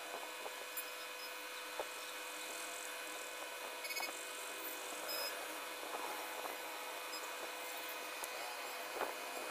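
Graphite pencil scratching steadily across paper while shading a drawing, with a few faint clicks and taps.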